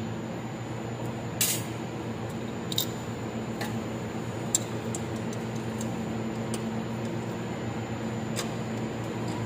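Steady low machinery hum, with scattered sharp metal clicks and a brief scrape as a wrench works the bolts of a bearing housing.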